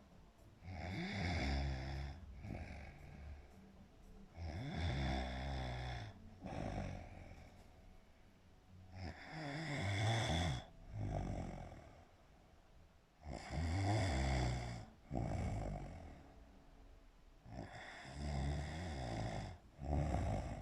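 Loud, rhythmic snoring: five rasping, low-pitched in-breaths about four seconds apart, each lasting a second or two and followed by a shorter, softer out-breath.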